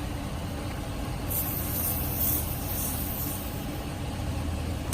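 Air hissing out of a car tyre's valve for about a second as the portable compressor's screw-on hose chuck is unscrewed, then fading. A steady low mechanical hum runs beneath it.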